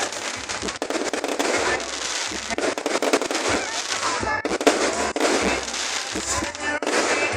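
Fireworks display going off: a dense, continuous crackling and popping of many bursts, with voices of onlookers mixed in.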